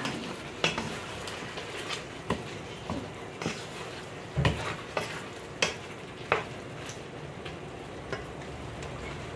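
Wooden spoon stirring chicken drumsticks and mushrooms in an aluminium pot, knocking and scraping against the pot at irregular intervals over a steady sizzle of the browning meat. The knocks are loudest about four and a half seconds in and die away after about six seconds.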